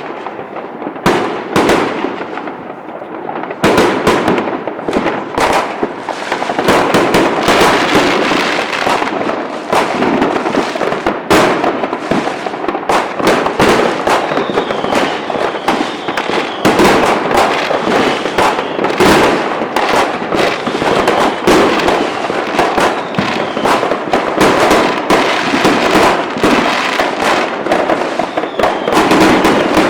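Fireworks display going off: a dense barrage of overlapping bangs and crackles, thinner at first and becoming near-continuous about four seconds in.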